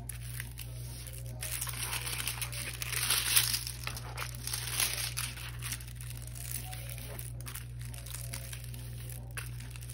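Clear plastic film over a diamond painting canvas crinkling as hands press and smooth it flat, busiest in the first half and easing off later.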